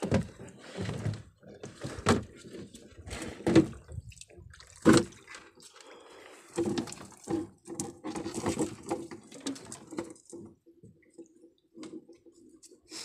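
Seawater splashing and dripping in irregular bursts as wet collapsible netting traps are hauled out of the sea over the side of a wooden outrigger boat.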